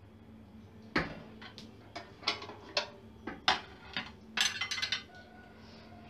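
Clinks and knocks of a microwave's turntable parts, the roller ring and glass plate, being handled and lifted out: about a dozen sharp hits, with a quick run of them near the end.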